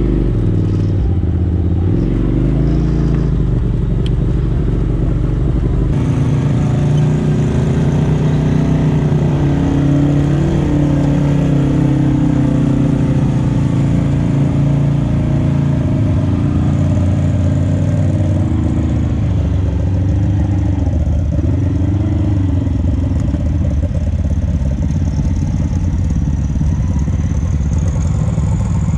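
Polaris RZR side-by-side engine running under a driver's throttle at low trail speed, heard from inside the cab, its pitch rising and falling as the revs change.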